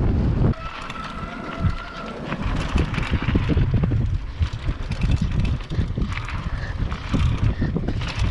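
Downhill mountain bike rolling fast over a rough gravel trail: irregular rattling and thudding from bumps and roots, with wind on the microphone. Loud wind rush at the start drops away about half a second in, and a thin steady whine sounds for about a second and a half after that.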